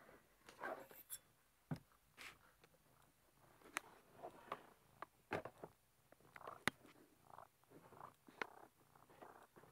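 Faint scattered clicks and soft rustling from a cat shifting and rolling over in a tight gap behind a bookshelf.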